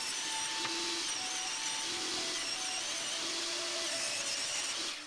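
Benchtop table saw running and ripping a cedar fence picket: a steady high whine and hiss that stops near the end.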